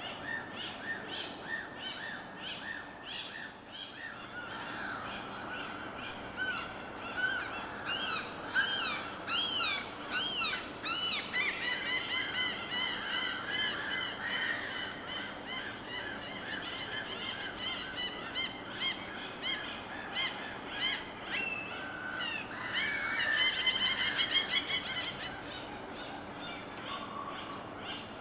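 Many birds calling over one another in a dense chorus of short chirps and calls that rise and fall in pitch, thickest about a third of the way in and again near the end.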